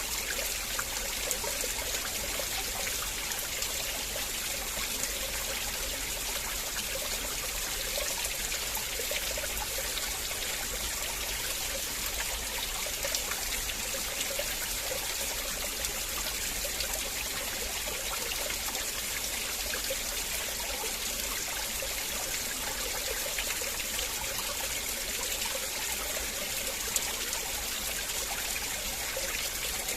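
River water flowing and trickling over stones, a steady, even rush with small splashing and gurgling detail.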